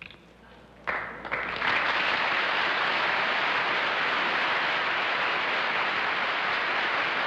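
Studio audience applauding, starting suddenly about a second in and holding steady.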